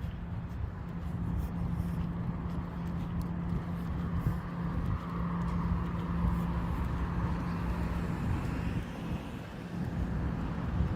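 Road traffic: a steady rumble of cars, with one vehicle passing by about midway, over a constant low hum.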